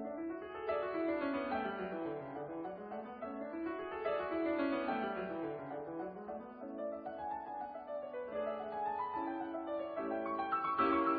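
Background piano music, with quick runs of notes sweeping up and down and then settling into fuller held chords near the end.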